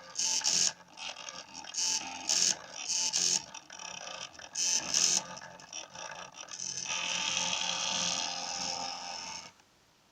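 Small stepper motors from DVD drives driving a mini CNC pen plotter: a run of short stop-start moves, then one longer steady whine from about seven seconds in that stops abruptly near the end.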